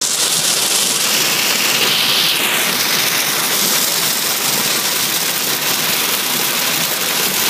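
Torrential rain on a moving car, heard from inside the cabin: a loud, steady hiss of rain pounding the roof and windshield, mixed with road noise.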